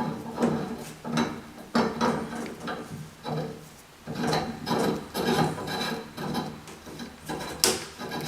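Shower valve stem being screwed back into the valve body: repeated rasping scrapes of metal threads, about one a second as it is turned, with a sharp click near the end.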